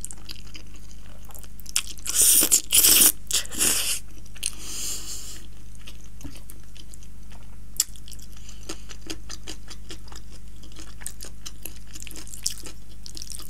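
Close-miked mouth sounds of eating creamy cheese spaghetti: loud slurping of the noodles from about two to four seconds in, then quieter wet chewing with many small clicks.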